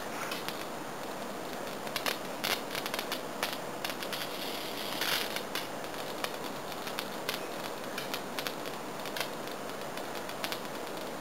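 Electric bug zapper's high-voltage grid snapping irregularly as insects strike it, with one longer crackle of about a second some five seconds in.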